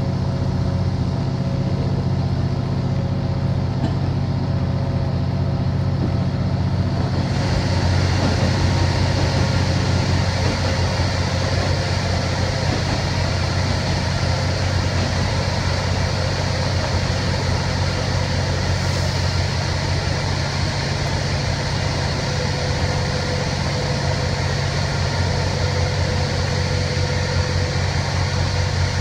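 Running noise of a JNR KiHa 48 diesel railcar heard from inside the passenger car: a steady low engine drone under wheel and rail noise. About seven seconds in, the noise suddenly turns brighter and hissier as the train enters a tunnel.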